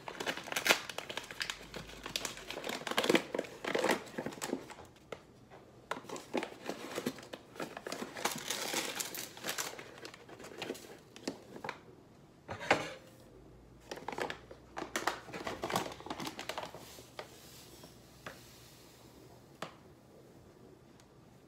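Paper sugar bag being handled and opened, a long run of irregular crinkling and crackling with a few sharp knocks, then quieter near the end with a faint hiss as granulated sugar is poured into a measuring cup.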